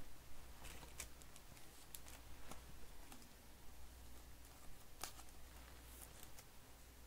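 Trading cards being handled and slid through the fingers: a handful of faint, scattered clicks and soft card-edge ticks.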